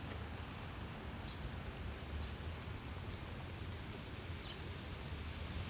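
Steady hiss of rain outdoors, with a low rumble and a few faint drip-like ticks.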